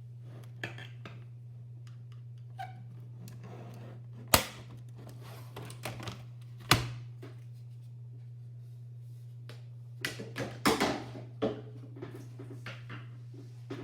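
Sharp clicks and knocks of hard keyboard parts being handled and set down on a work surface: two loud knocks a few seconds apart, then a quick cluster of clicks and knocks. A steady low hum runs underneath.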